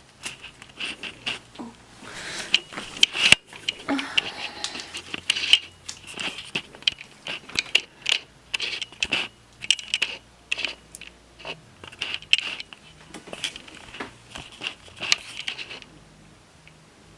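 Homemade borax slime being squeezed and stretched by hand, giving an irregular run of wet squelches, clicks and small crackling pops.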